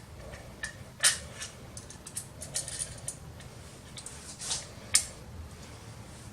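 An SSD being handled and pushed into its drive bracket: light scrapes and clicks of the drive against the bracket, with two sharp clicks about a second in and just before five seconds.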